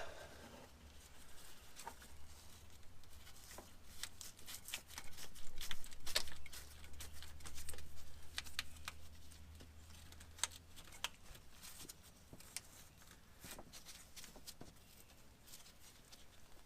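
Irregular light metallic clicks and taps of a wrench working the new transmission cooler line fitting, a Dorman part, into a 2002 Ford F350's radiator, over a low hum that fades about ten seconds in.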